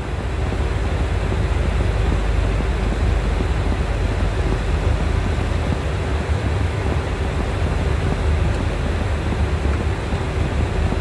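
Airbus airliner on its landing rollout, slowing and turning off the runway: a steady low rumble of the engines and the rolling airframe heard from inside, with a faint steady hum.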